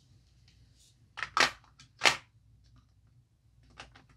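A few light clicks and taps from hands working on a diamond painting canvas, four close together about a second in and two fainter ones near the end.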